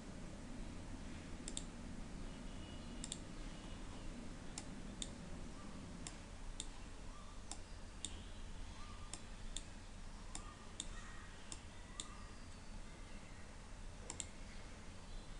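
Computer mouse button clicks: a dozen or so sharp, single clicks at irregular intervals over a low steady hum.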